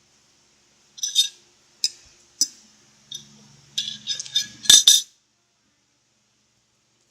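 Close-miked eating sounds: a run of short, sharp clicks and clinks, a few single ones spaced out and then a quick cluster about four to five seconds in, the loudest, with a moment of silence at the start and after about five seconds.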